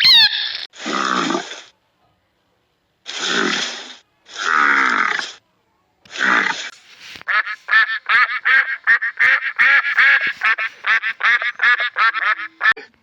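Farm animal calls: four harsh, noisy calls in the first half, then a fast run of short, quack-like calls, about five a second, that stops just before the end.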